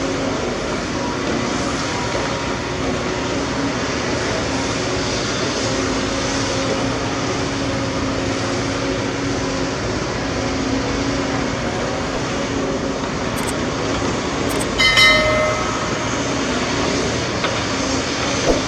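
Heavy diesel earthmoving machinery, excavator and dump truck engines, running steadily under load. About fifteen seconds in, a brief high tone with overtones sounds once, like a horn.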